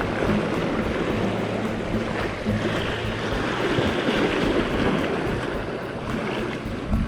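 Wind buffeting the microphone over waves washing against the shore, with a faint steady low hum underneath.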